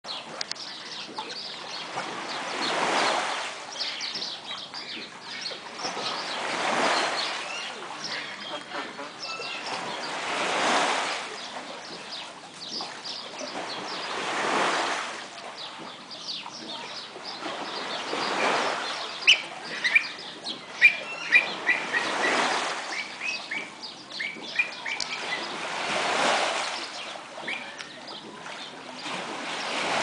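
Water surging and breaking in a walled wave pool, one swell about every four seconds. A burst of short, sharp bird calls comes about two-thirds of the way through.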